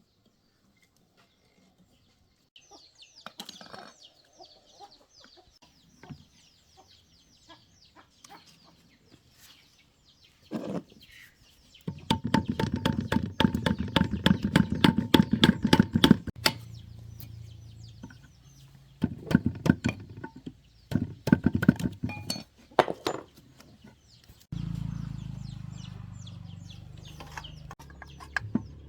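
Electric motor of a banana slicer run in short bursts with a fast rattle, then running steadily with a hum from about two-thirds of the way in. Faint high chirps come before the first burst.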